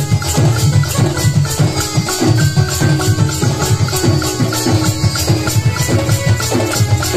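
Sambalpuri folk music playing without vocals: low drum strokes under a fast, even rattle of small percussion, with a held melody line.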